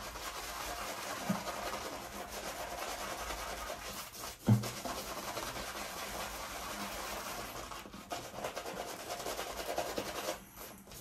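Boar-bristle shaving brush swirling shaving cream into a lather: a steady brushing rub that stops shortly before the end, with one brief thump about four and a half seconds in.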